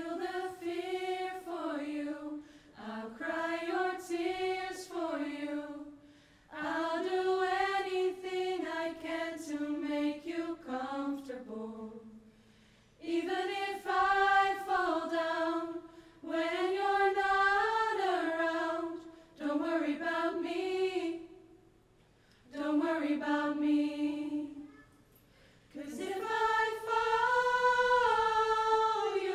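Small mixed vocal group singing a slow song in long phrases with short breaks between them.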